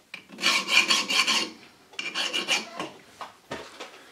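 Hand file rasping across the edges of stainless steel crank webs held in a lathe chuck: two spells of filing strokes in the first three seconds, then a few light knocks.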